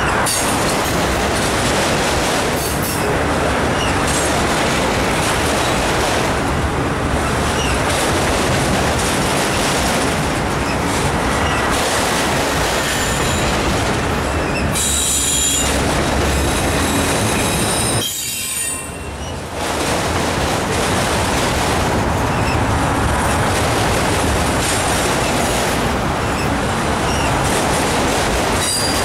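Freight train of autorack cars rolling past at close range: a steady, loud rumble and clatter of steel wheels on rail, with brief high-pitched wheel squeals. The noise dips for a second or so about two-thirds of the way through.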